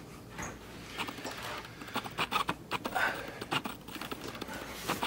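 Handling noise from an equatorial telescope mount head being carried and set down: irregular clicks, knocks and rustling, with a sharper knock near the end.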